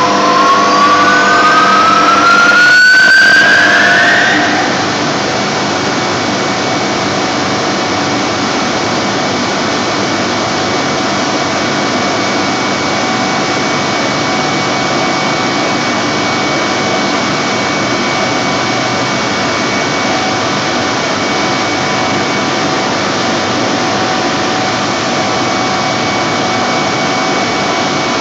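Industrial turbocompressor driven by a 1300 kW, 6 kV induction motor, starting for the first time: a loud whine rises in pitch for about the first four seconds, then levels off as the machine runs steadily with a constant whine and hum made of several fixed tones.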